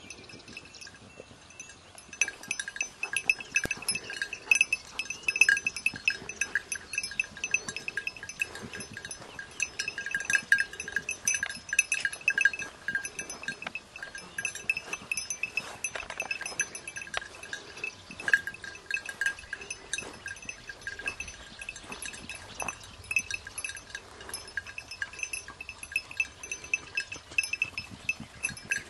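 Small metal bell on a hunting hound's collar, jingling rapidly and unevenly as the dog moves through grass and brush. The jingling starts about two seconds in.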